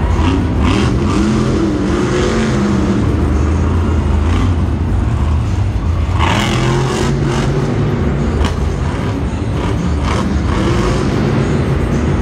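Monster Mutt Dalmatian monster truck's supercharged V8 engine revving hard and easing off again and again, its pitch rising and falling several times.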